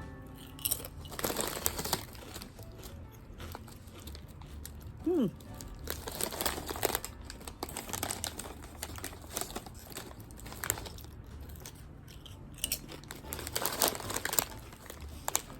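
Tortilla chip bag crinkling and rustling in irregular bursts, with crunching of the chips.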